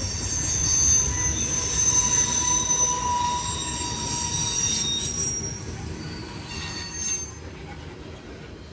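Freight train cars rolling past with high-pitched wheel flange squeal over a low rumble of the wheels. The sound fades away over the last few seconds.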